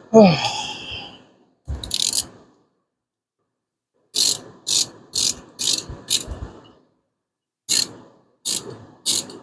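Hand ratchet wrench tightening rocker-shaft bolts on a 5.7 Hemi, in short strokes of ratcheting clicks, about two a second in two runs. It opens with a brief squeak that falls in pitch.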